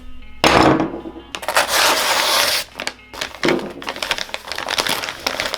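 Background music over bouts of crinkling and crackling, like plastic packaging being handled.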